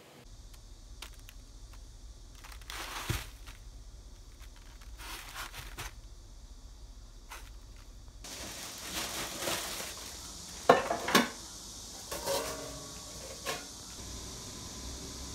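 Handling sounds of peaches: light clicks and scrapes of a fork among cut peach slices in a plastic container. Then rustling and knocking as whole peaches are handled in their packing box, with the loudest knocks about eleven seconds in.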